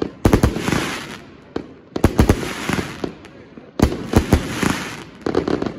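Firework cake firing shot after shot, about four in a steady sequence roughly every second and three quarters. Each shot is a cluster of sharp bangs followed by a spray of crackling from the bursting stars.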